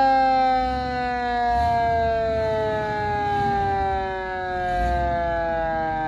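1963 International Loadstar 1600 fire truck's siren winding down after being sounded: one long wail sliding slowly and steadily down in pitch.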